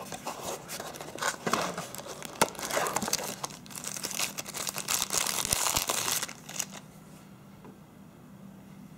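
Cardboard phone box handled with a few clicks and rustles as it is opened, then the phone's clear plastic bag crinkling as the phone is pulled out and unwrapped. The crinkling is densest around the middle and stops about seven seconds in.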